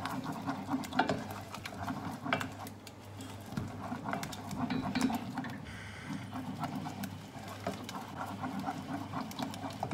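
Wooden spoon stirring a thick cheese and egg mixture fast in a stainless steel saucepan, with quick repeated scrapes and taps against the pan, over a steady low hum. The mixture is being cooked through after the egg went in.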